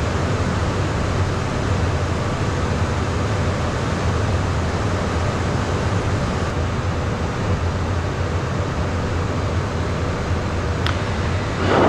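Steady cockpit noise of a Beechcraft Premier 1A business jet in flight: rushing airflow over the fuselage with a constant low engine hum, the throttles pulled back for a descent. One brief click near the end.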